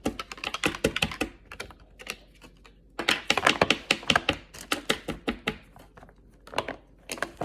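Rapid, irregular clicking and tapping, like typing, in three runs: one at the start, the longest from about three seconds in, and a short one near the end.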